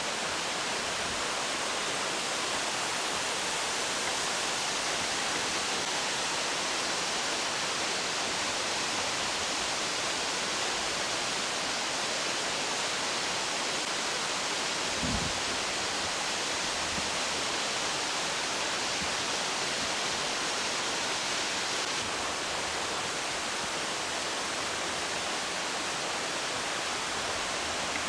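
Steady rush of water from a rocky mountain stream and waterfall, an even, unbroken hiss.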